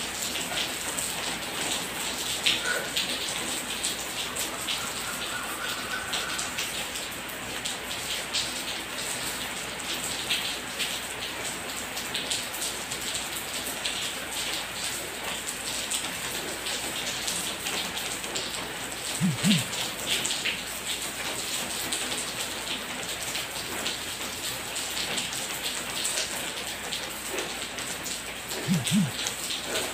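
Steady rain pattering, with two brief low sounds, one about two-thirds of the way in and one near the end.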